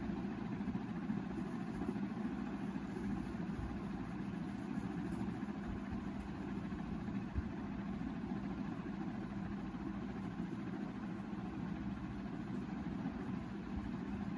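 A steady low mechanical hum with a constant low tone, running evenly without change.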